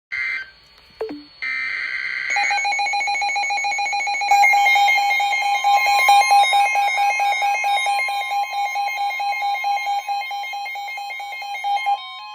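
NOAA Weather Radio emergency alert for a flash flood warning: two short bursts of screechy digital header tones, then a rapid, evenly pulsed alarm beep. About four seconds in, a steady attention tone joins the beeping, and both stop near the end.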